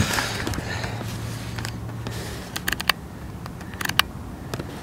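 Light clicks and small knocks in short clusters, a little under three seconds in and again about a second later, over a faint low hum that stops about halfway through.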